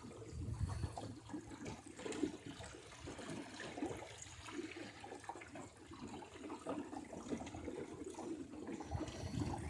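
Water gurgling and splashing irregularly against the hull of a small sailboat under way.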